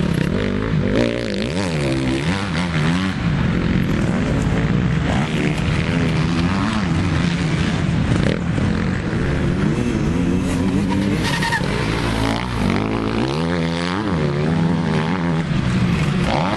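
Motocross bike engines revving hard, their pitch repeatedly rising and falling every second or so as the riders open and close the throttle around corners and over jumps.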